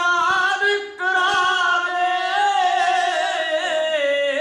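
A group of male kavishri singers singing unaccompanied in Punjabi, holding long notes together with wavering pitch, with a short break about a second in.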